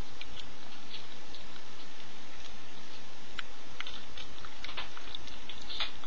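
Chihuahua mother licking her newborn puppies: scattered small wet clicks and smacks, coming more often in the second half, over a steady low hum and hiss.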